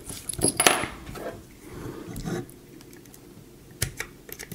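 Small sharp clicks and taps of a tool and hard plastic, with handling rustle, as the pins holding the stock wire connector are worked out of a Roomba wheel module's plastic housing. Several clicks come in the first second, and two more near the end.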